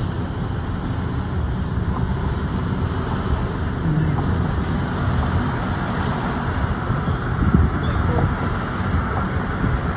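Steady rumble of tyres and engine heard inside the cabin of a moving car.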